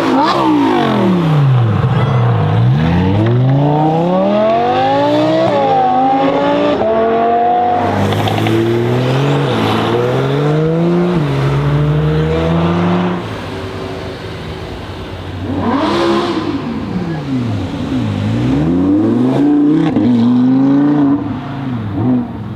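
Audi R8 V10 Performance's 5.2-litre V10 through a loud aftermarket exhaust, accelerating hard: the revs climb in steps and drop back at each gear change. Later the revs sweep down and up again twice, with a sharp crack from the exhaust about two-thirds of the way through and a short pop near the end.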